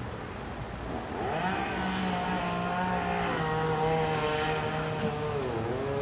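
Chainsaw engine revving up about a second in and running at high speed, its pitch dipping briefly and climbing again near the end.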